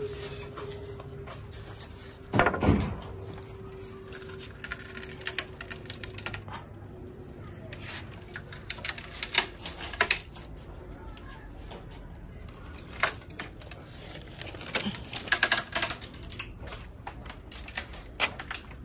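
Scattered clicks, taps and knocks of wooden slats being handled as a wooden shipping crate is taken apart, with a louder knock about two and a half seconds in.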